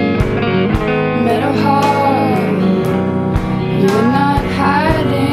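Recorded indie-rock music: a woman singing a slow, gliding melody in two phrases over guitar and a steady chord backing.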